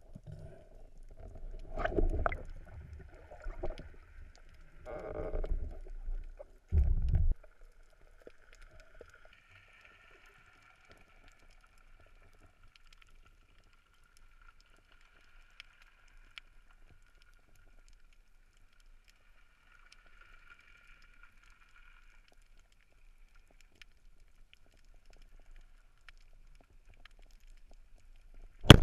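Muffled underwater sound through a GoPro housing: sloshing and knocks in the first several seconds, then a long quiet stretch with only a faint steady high whine, ending in the sudden crack of a Pathos band speargun firing.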